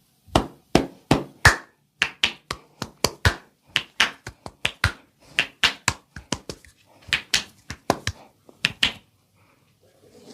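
Percussive massage strokes: the masseur's hands strike the client's body in a quick, uneven rhythm of about three sharp slaps a second, then stop about a second before the end.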